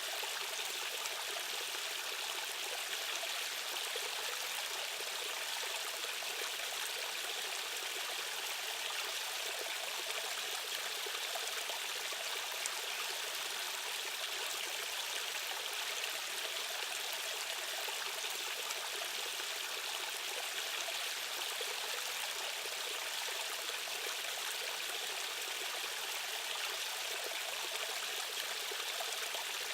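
A stream's current rushing steadily, a continuous even hiss with little deep rumble.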